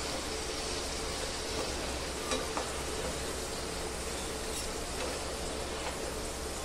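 Sweet potato fries sizzling in hot oil in a pan as they are scooped out with a metal slotted spoon and wire spider strainer, at the half-done stage of the first fry. There are a few short clicks of the metal utensils, about two and four and a half seconds in.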